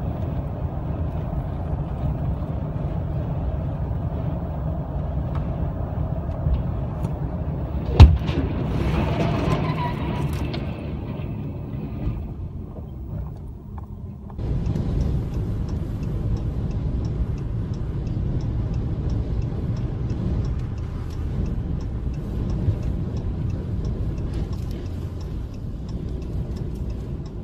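Road rumble inside a following car, broken about 8 seconds in by a single loud crash as a loaded logging truck wrecks, followed by a few seconds of rumbling and clatter as the logs spill across the road. After an abrupt change, steady road and wind noise of highway driving.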